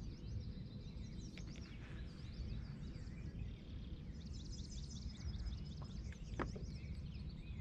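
Several birds chirping and singing in quick, high calls over a low steady rumble, with a sharp click about a second and a half in and another after six seconds.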